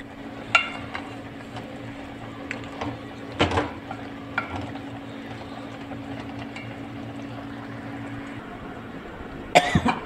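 A metal spoon and cooking pot clinking a few times as spinach is stirred and checked, with a louder cluster of clinks near the end. A steady low hum runs underneath and cuts off shortly before the end.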